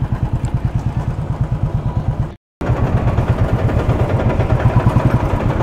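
Motorcycle engine running with an even pulsing beat. The sound drops out completely for a moment about two seconds in, then comes back a little louder.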